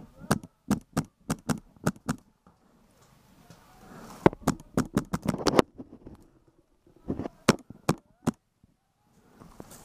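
Milsig M17 XDC magfed paintball marker firing in quick strings of sharp shots: about seven in the first two seconds, another string about halfway through, and four more near the end.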